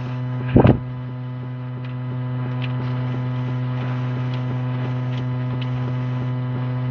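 A steady low hum with a stack of even overtones, unchanging in pitch. There is a short thump about half a second in and a few faint ticks later.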